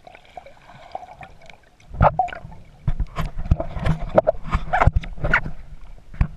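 Muffled water sloshing and gurgling around an underwater action camera as a swimmer moves. From about two seconds in, a rapid irregular series of sharp knocks and splashes.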